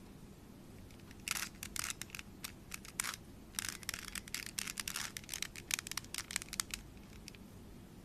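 Plastic 3x3 Rubik's cube being twisted by hand: quick runs of clicking and rattling as its layers turn, starting about a second in and stopping near the end.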